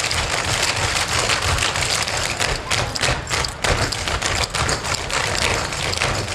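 Clogging shoes with metal taps striking a wooden stage in a fast, dense rhythm of many clicks and stomps from a group of dancers.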